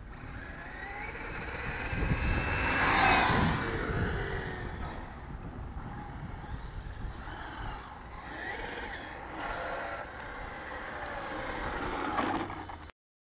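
Brushless electric motor of a 1:8 RC rally car whining, its pitch rising and falling as the car accelerates and slows, loudest about three seconds in, over the rumble of tyres and wind. The sound cuts off suddenly near the end.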